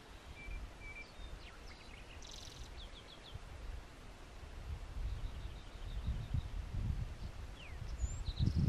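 Small wild birds chirping, with short calls, quick trills and a falling whistle near the end, over an uneven low rumble that grows louder toward the end.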